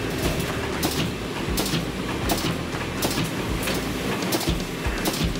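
Plywood veneer-line machinery running, with a sharp clack about every 0.7 seconds over a steady mechanical din.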